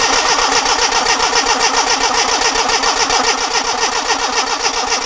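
Classic Mini's A-series engine cranking on the starter motor in a steady, even rhythm without firing. The fuel line is off the fuel pump to check delivery, and no petrol is reaching it, so the engine cannot catch.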